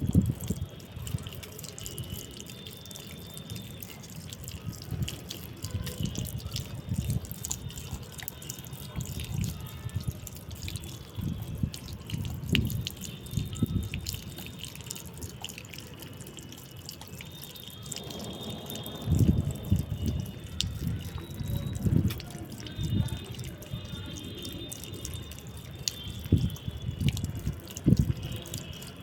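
Water dripping and splashing while pet parrots are bathed, with irregular splashes and taps that grow busier about two-thirds of the way in.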